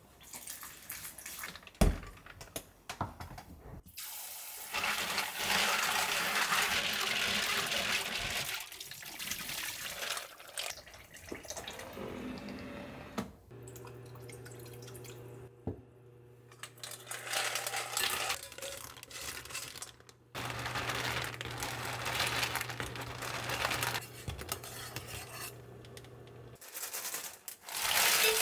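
Kitchen work sounds: water running for a few seconds, with a sharp knock about two seconds in. Later an induction cooktop gives a steady low hum for most of the second half, with small clinks of utensils.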